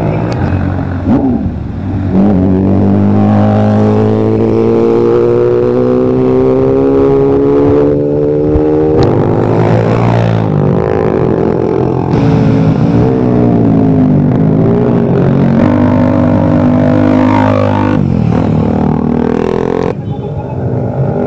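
Motorcycle engines running hard as bikes pass at speed, a loud drone whose pitch climbs slowly for several seconds, then rises and falls several times.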